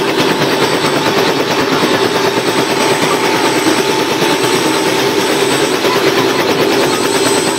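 Helicopter running close by: a steady, fast rotor chop with a thin high whine over it.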